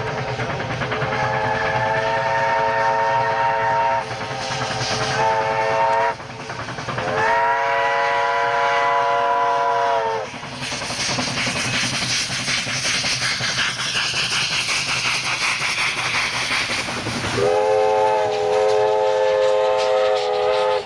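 Steam locomotive whistle blowing a long blast, a short one and another long one, the close of a grade-crossing signal. Then the train runs past with a fast rhythmic clatter, and another long whistle blast sounds near the end.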